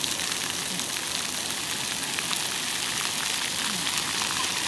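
Splash pad fountain jets spraying and splashing onto wet concrete, a steady hiss of water, with faint voices in the background.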